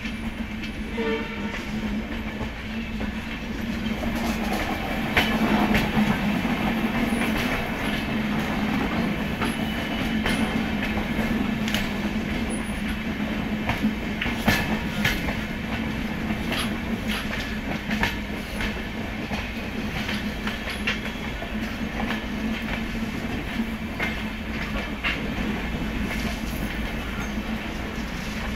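Passenger train coaches rolling over the track, heard from inside a coach: the wheels clatter over rail joints and points, with frequent sharp, irregular knocks over a steady low hum.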